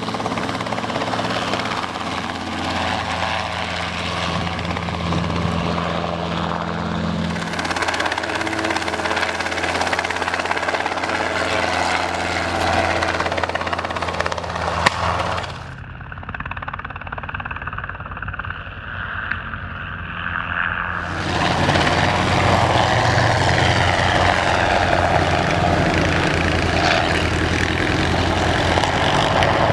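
Small helicopter's rotor and engine running steadily as it lifts off and flies low. About halfway through, the sound turns quieter and duller for some five seconds, just after a single sharp click, then comes back louder.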